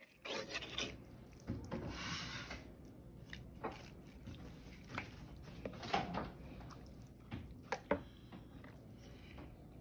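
A kitchen knife slicing raw chicken breast on a wooden cutting board: wet rubbing and squishing of the meat, with several sharp knocks of the knife and meat against the board, the strongest near the end.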